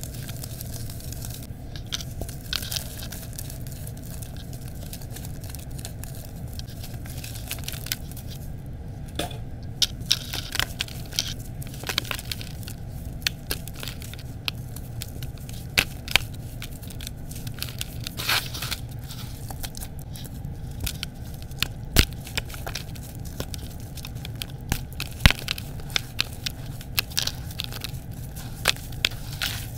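Bare hands squeezing and crushing wet red gritty dirt and crumbled brick into a sticky paste in a plastic bucket: irregular wet squelches and gritty crackles, with sharp clicks now and then. A steady low hum sits underneath.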